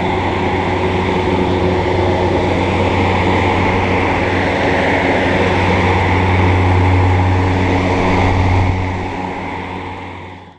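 Central air conditioner condenser unit running: a steady low hum with the whoosh of its fan, fading out near the end.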